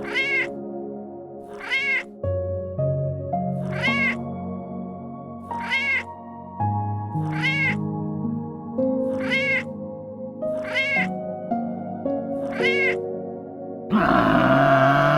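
A domestic cat meowing, eight short meows about every one and a half seconds, over soft background music with held notes. Near the end a loud, rough animal sound begins.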